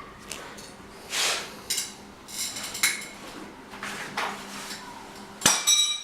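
Hard objects being handled and knocked together: irregular clattering, scraping and knocking, with a loud metallic clank near the end that rings briefly.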